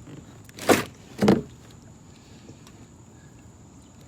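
Two short, loud splashes about half a second apart, near the start, as a released blue catfish hits the water and kicks away.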